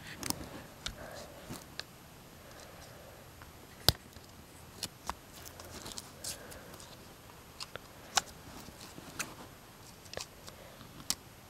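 Fiskars scissors snipping at the plastic wrap on a small plastic lip-gloss container: about a dozen scattered sharp snips and clicks, the loudest about four seconds in.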